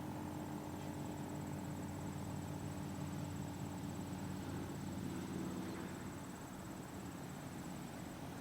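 Insects, likely crickets, trilling steadily at a high pitch, over a low steady hum.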